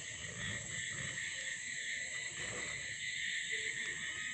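Steady high-pitched chirring of insects, with a faint soft rustle of paper being folded and creased by hand.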